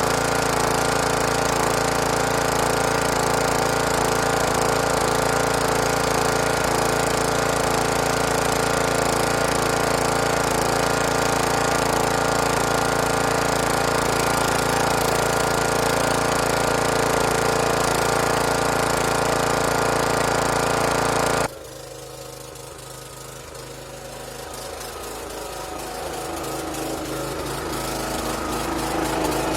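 Snapper lawn mower engine running loud and steady. About two-thirds of the way through, the sound drops suddenly, then builds back up gradually over the last few seconds.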